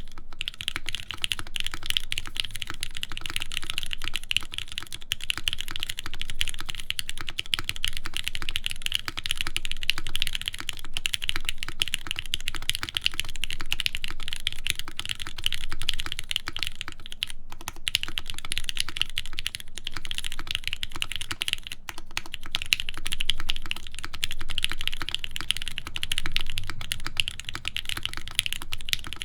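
Fast, continuous typing on a CarolinaMech Palmetto mechanical keyboard with lubed Gateron Milky Pro Yellow linear switches on an aluminium plate and Hammerworks CRP keycaps: a dense stream of keystroke clacks, with brief pauses about 17 and 22 seconds in.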